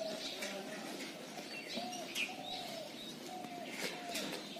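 Birds calling: a run of short, arched, cooing notes about twice a second, with thin higher chirps of small birds over them. A couple of brief scratchy scrapes come about halfway through and near the end.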